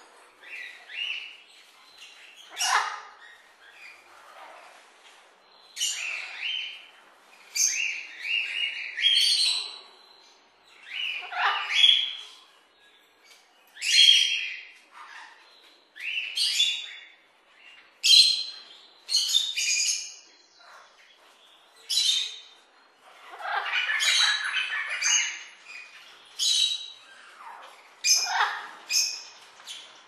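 Parrots calling: a string of short, loud calls, one every second or two, with a longer run of crowded calls about two-thirds of the way through.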